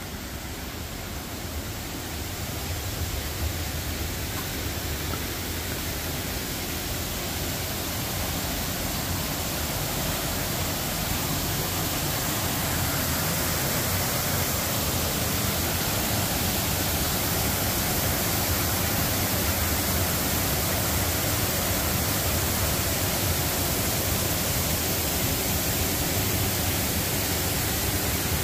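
Steady rush of a waterfall running at strong flow, growing a little louder over the first few seconds and then holding even.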